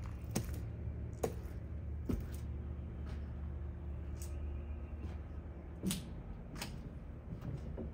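Quiet ambience: a steady low hum, with a few light clicks and taps scattered irregularly through it.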